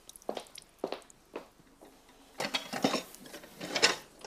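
Kitchen utensils and dishes clinking and clattering: a few separate light knocks, then a busier, louder stretch of clatter in the second half.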